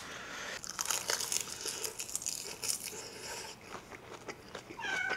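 Close-miked chewing of a mouthful of kimchi fried rice topped with crisp roasted seaweed: dense, irregular crackly crunching.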